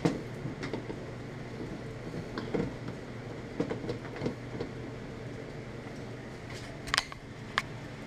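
Scattered light knocks and clicks as a plastic clamp meter and its thermocouple lead are handled and set against a clothes dryer's control panel, the two sharpest near the end, over a steady low hum.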